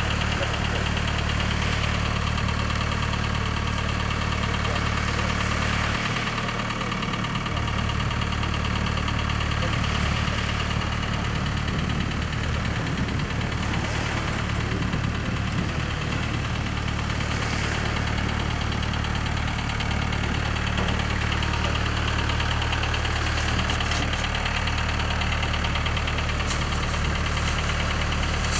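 An engine idling steadily, a low even hum whose deepest part drops away briefly about six seconds in.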